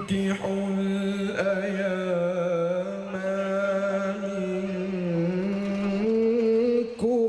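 A man reciting the Quran in the melodic tilawah style, holding long notes with wavering ornaments. The phrase breaks off briefly near the end.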